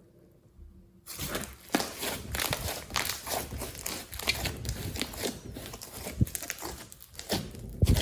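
Hands kneading and squeezing glossy slime mixed with clay: a dense, irregular run of sticky clicks and crackles that starts about a second in, with a few louder squelches, the loudest near the end.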